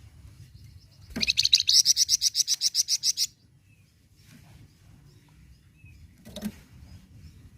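Flamboyan songbird calling: a fast run of evenly repeated high notes, about nine a second, lasting about two seconds. Fainter calls follow, with one short call near the end.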